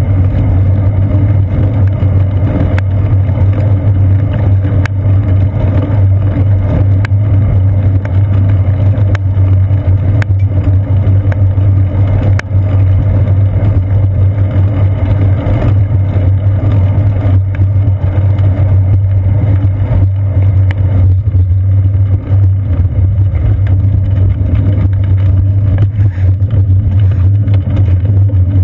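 Steady low rumble of a bicycle ride on a paved path, with tyre and frame vibration and wind buffeting carried through a seat-post-mounted GoPro Hero 2 in its housing.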